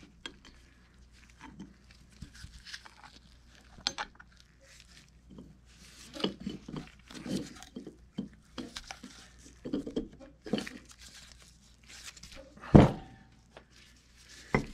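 Gloved hands working parts into a cast-iron pump head on a workbench: scattered rustling and light clicks of small metal parts, with a sharp click about four seconds in and a heavier knock near the end as the head is handled.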